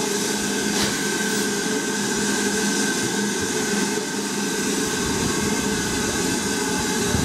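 Steam locomotive, BR Standard Class 9F 2-10-0 No. 92214, letting off steam while standing: a steady, loud rush of escaping steam with a steady tone running through it.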